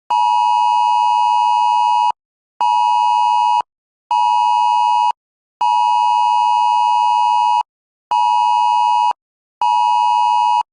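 Emergency alert attention tone: a loud two-note 853 and 960 Hz beep in the Wireless Emergency Alert rhythm of one two-second tone followed by two one-second tones, played twice. It signals an incoming tornado warning.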